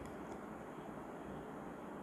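Faint, steady background noise with a low hum: room tone, no distinct events.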